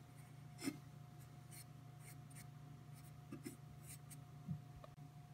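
Faint handling sounds: a series of light, irregular scratches and clicks from fingers on a wooden ladle, over a steady low hum.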